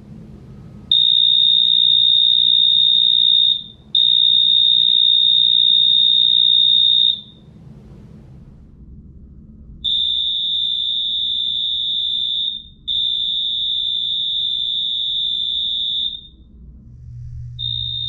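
Hotel-room doorbell for hearing-impaired guests, a fire-alarm-style electronic sounder, going off in long, steady, high-pitched tones of about three seconds each. The tones come in pairs: two in the first half, two more after a pause, and another starting near the end.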